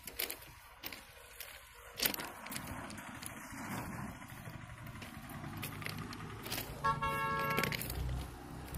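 A low steady rumble with a few scattered sharp clicks, then a horn blows once, for under a second, near the end.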